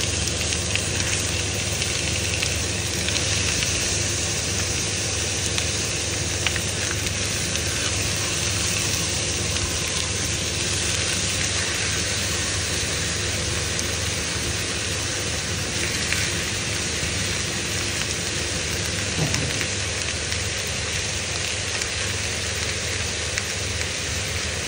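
Raw chicken pieces frying in hot ghee with browned onion in a non-stick pan: a steady sizzling hiss.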